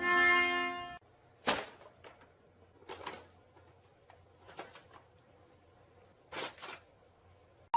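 A pitched, buzzy tone that cuts off suddenly about a second in, then a few short soft knocks spaced a second or more apart in a quiet room.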